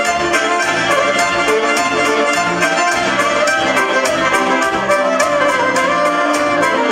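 Live band playing Romanian folk dance music, a saxophone carrying the melody over keyboard and a steady beat.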